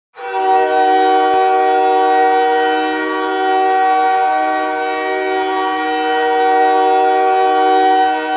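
Ice hockey goal horn sounding one long, steady blast of several tones together, signalling a goal.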